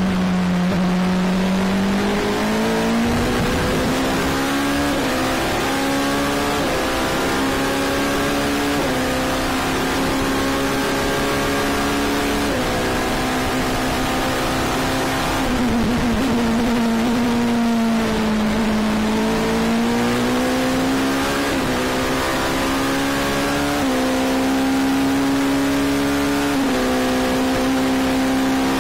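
Oreca 07 LMP2 prototype's Gibson V8 racing engine at speed, heard from the cockpit: the engine note climbs through the gears in steps with quick shifts, falls as the car slows for a corner around the middle, then climbs through the gears again.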